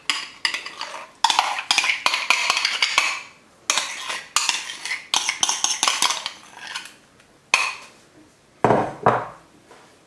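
Metal spoon scraping and clinking against bowls as mayonnaise is spooned out into a stainless steel mixing bowl of salad: a busy run of scrapes and clicks, then a couple of heavier knocks near the end, as if the spoon is tapped clean on the bowl.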